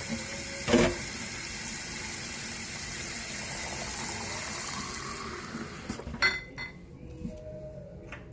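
Warm water running from a tap into a carpet cleaner's plastic clean-water tank, a steady rushing hiss that is shut off about five to six seconds in, near the fill line. A few sharp knocks and clicks follow.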